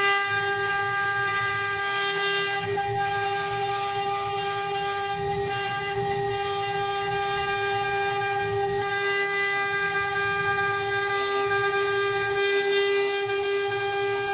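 CNC wood carving router running, its spindle giving a steady high whine at one unchanging pitch over a low rumble of cutting noise.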